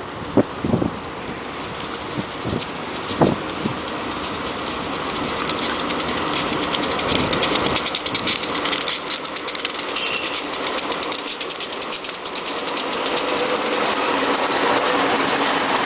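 GE C40-8W and ES44DC diesel locomotives hauling a double-stack container train pass close by, with engine noise and wheel-on-rail clatter growing louder as the lead units go by. A few sharp thumps come in the first few seconds.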